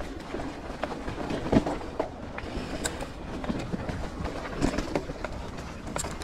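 Mountain bike riding over a dirt trail: a steady rumble of knobbly tyres on dirt and leaf litter, with the bike rattling and sharp knocks as it rolls over bumps and roots, about half a dozen standing out.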